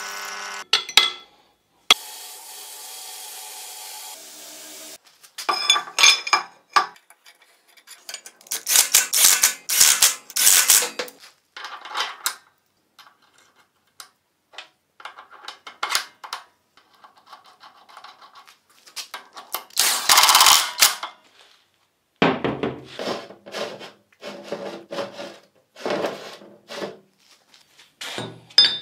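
Workshop tool noises in a string of short separate bursts: rubbing and scraping of tools on material, with a steady hiss about two seconds in and short pauses between the bursts.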